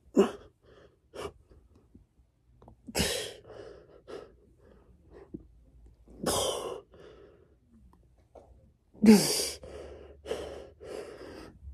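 A man's hard, sharp exhales as he does push-ups: about eight short bursts of breath, a few of them voiced as grunts, the loudest about nine seconds in.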